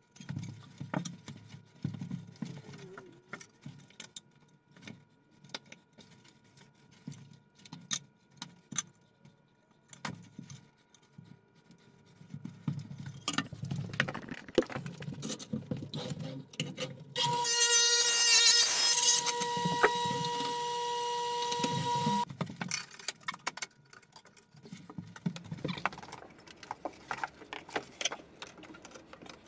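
Scattered knocks and clatter of tools and tiles being handled. About halfway through, an electric motor starts with a steady whine, runs loud for two to three seconds, then runs on more quietly for about two more before it stops.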